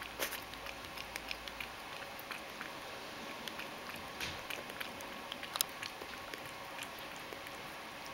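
Ragdoll cat lapping milk from a stainless steel bowl: a quick, irregular run of small wet clicks and splashes, a few louder than the rest.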